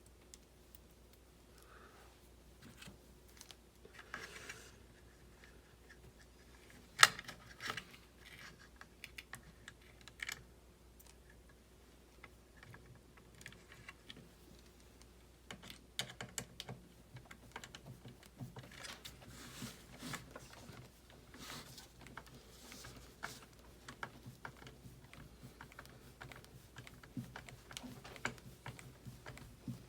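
Scattered small clicks and taps of plastic parts, screws and a screwdriver being handled while assembling an RC car chassis, with one sharper click about seven seconds in.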